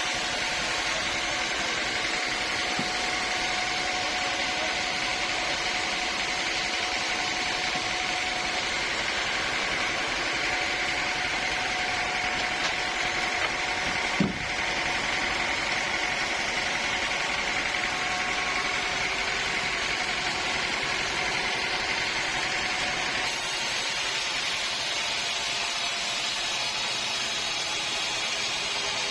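Sawmill machinery running steadily, a continuous motor hum with a steady whine, and a single knock about halfway through.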